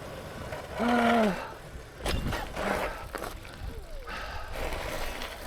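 A man's short, breathless vocal groan about a second in, followed by a few fainter short vocal sounds, over a steady rush of wind noise on the microphone while cycling.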